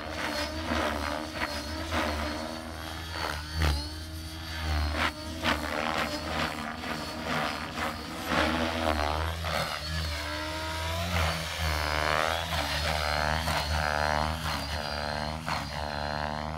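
Align T-Rex 550 radio-controlled helicopter in flight, its rotor and motor whine rising and falling in pitch again and again as it manoeuvres, with wide swoops in the second half, over a steady low rumble.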